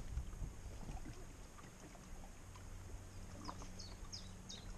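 Low wind rumble on the microphone under a faint steady hum; from about three and a half seconds in, a small songbird gives a run of quick falling chirps, about three a second.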